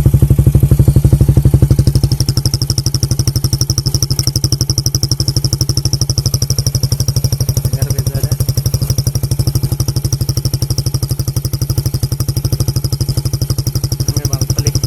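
Suzuki Belang two-stroke motorcycle engine idling with a fast, even exhaust beat. About two seconds in the engine note gets quieter and a steady high-pitched whistle joins it: the fake turbo whistle fitted in the exhaust, which makes the bike less noisy than the standard expansion chamber.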